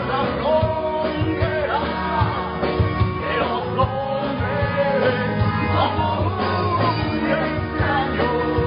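Live rock band playing electric guitars over a drum kit, loud and continuous.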